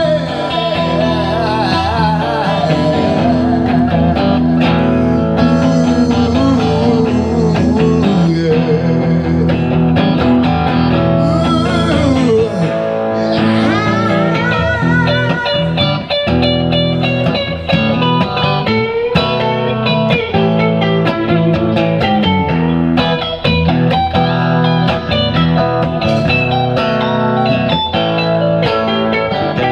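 Live blues played on two electric guitars, with a man's voice singing at times.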